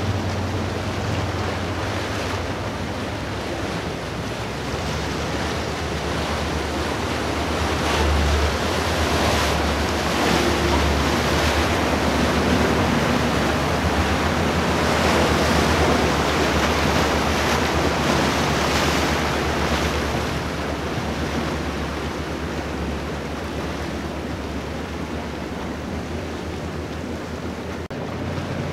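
Water rushing from waves and the wakes of passing powerboats, with wind buffeting the microphone and a low drone of boat engines underneath. The rush swells louder through the middle and eases off again.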